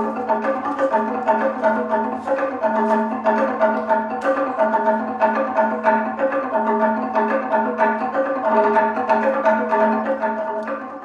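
Txalaparta: two players beating a wooden plank on trestles with upright wooden sticks, a fast unbroken run of ringing, pitched wooden knocks in interlocking rhythm.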